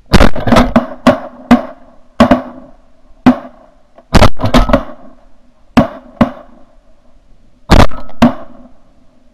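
A volley of shotgun fire from several duck hunters shooting at a flock of teal: about fifteen sharp, loud shots in quick, uneven succession, some nearly on top of each other, each with a short ringing tail. The shots come in clusters about a second in, around four seconds in, around six seconds in, and a last pair near the end.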